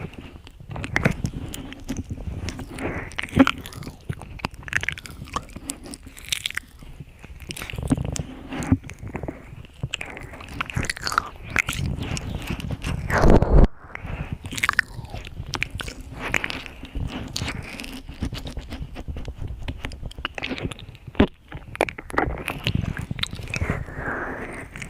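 ASMR mouth sounds: irregular clicks and smacks of lips and tongue in quick succession, with one louder, longer sound about halfway through.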